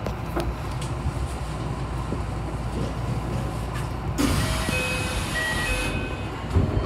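Kintetsu electric commuter train standing at a platform, its equipment giving a steady low hum. About four seconds in, a sudden hiss of released air lasts nearly two seconds, with a few short tones over it.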